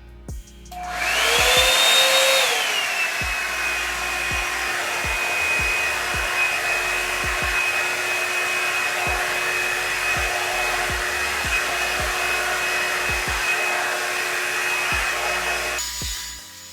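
Revlon One-Step Hair Dryer and Styler, a blow-dryer brush, switched on: a steady motor whine over a rush of air. It comes in higher and louder for a moment, then settles to a lower, even pitch and cuts off near the end.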